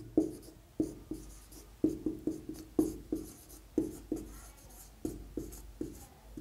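Marker pen writing on a whiteboard: a run of short, irregularly spaced strokes and taps as handwriting goes onto the board.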